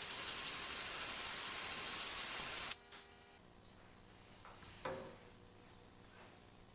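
A steady spraying hiss lasting about three seconds that cuts off sharply, followed a couple of seconds later by a single light knock.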